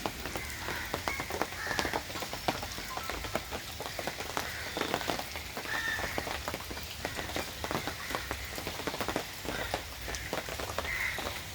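Rain falling, heard as a dense, irregular scatter of drops striking over a steady hiss.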